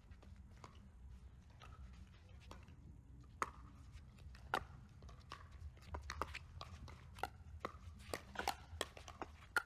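Pickleball paddles striking a hard plastic ball: two sharp pops about a second apart, then a quicker run of pops as the rally goes on at the net.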